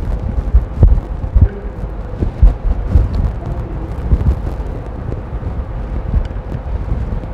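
Irregular low thumps and rumbling from wiring cables and connectors being handled and knocked against a robot arm's open housing, with a faint steady hum.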